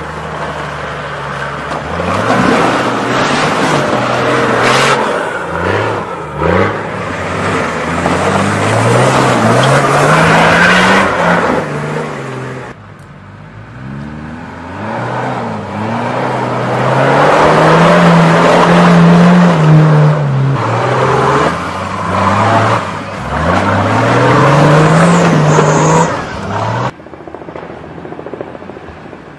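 4x4 SUV engine revving up and down repeatedly under load, with heavy noise from tyres and churned ground. The sound drops away abruptly twice, about halfway through and near the end.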